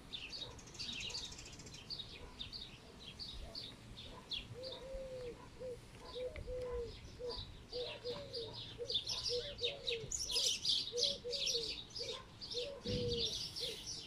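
Small birds chirping, louder toward the end, with a lower-pitched bird calling in short repeated notes from about four and a half seconds in. A dull thump near the end.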